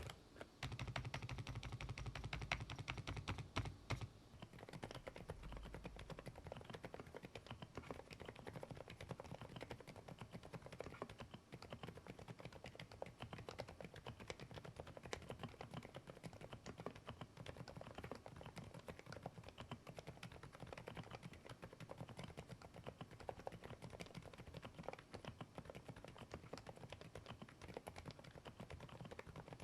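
Rapid typing on low-noise mechanical keyboards, a quiet, dense clatter of keystrokes. The first few seconds are a Thinkway Toche 101 with Poached Egg switches; about four seconds in it changes to an AULA F108 Pro with LEOBOG silent Cotton Candy switches.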